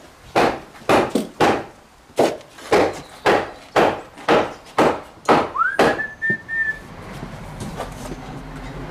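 A run of about a dozen sharp knocks, roughly two a second, then a person whistles one short note that rises and holds. A low steady hum follows.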